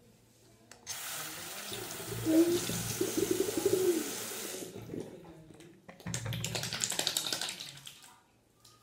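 Water running and splashing for about four seconds, then a shorter second stretch of splashing with crackly spatters.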